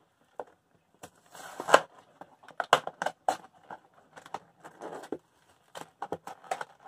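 Stiff clear plastic blister packaging of a small action figure crackling and clicking in the hands as it is worked open: a longer crinkle about one and a half seconds in, then a string of sharp, irregular clicks.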